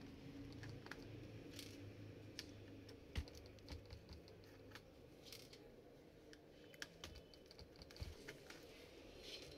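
Faint, scattered plastic clicks and taps from a Dell Latitude E6540 laptop keyboard being pried out and handled.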